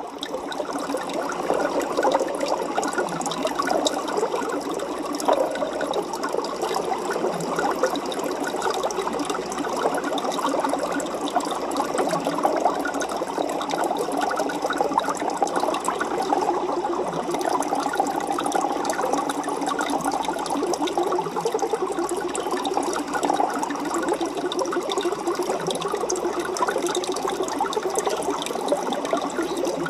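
Aquarium water bubbling and trickling steadily, with a dense patter of small pops and splashes.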